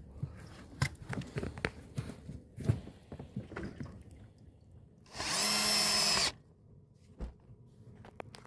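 Power drill running once for just over a second, a steady whine that starts and stops sharply, while a stick and a piece of driftwood are being joined into a shovel. Before it come scattered knocks and clicks of the wood being handled.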